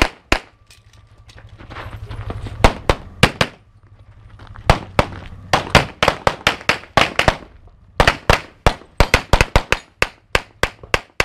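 Competition pistols firing rapid strings of shots, several a second, broken by two short pauses about a second in and about four seconds in, then fast strings again to the end.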